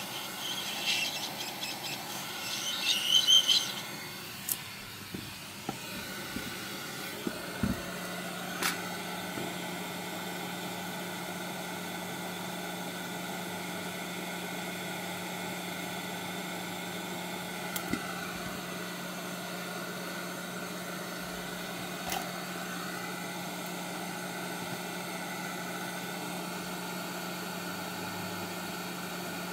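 Hot air rework station's blower running with a steady hum and faint hiss, starting about seven seconds in. Before it come a few seconds of high squeaky scraping, and a few light clicks are scattered through.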